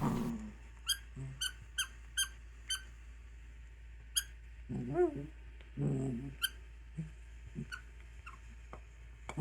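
A dog's squeaky toy squeaking in short, high squeaks, about seven times, as the dog chews it. Between them the dog makes a few strange low vocal noises, one rising and then falling in pitch about halfway through.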